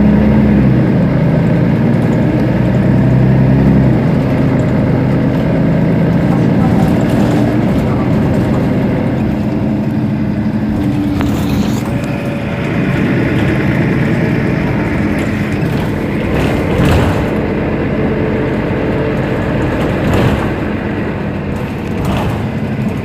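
Mercedes-Benz Citaro Facelift city bus idling while stopped: a steady low diesel hum, with a few brief sharp noises in the second half.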